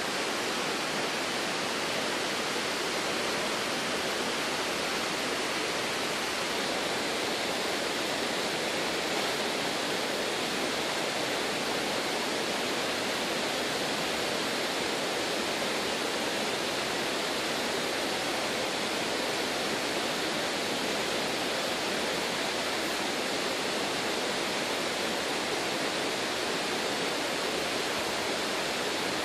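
Steady rushing of river water running over a riffle, an even hiss that does not change.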